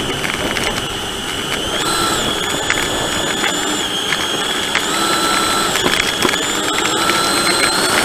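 An RC plane's motor whines at low throttle, heard through its onboard camera. The pitch steps up and back down a few times. Light rattling comes from the airframe as it rolls on the grass.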